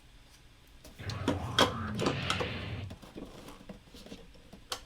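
Handling noise: rustling and clicking, loudest for about two seconds from a second in, with a sharp single click near the end.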